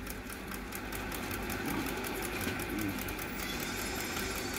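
Homemade magnet flywheel generator spinning after a hand start: a steady mechanical whir with a rapid, even ticking.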